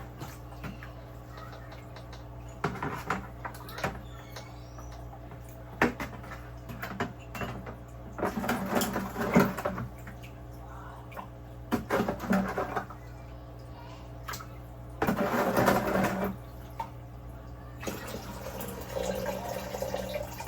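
A cup scooping fine wet sand and pouring it into aquarium water, in several irregular splashy bursts, over a steady low hum.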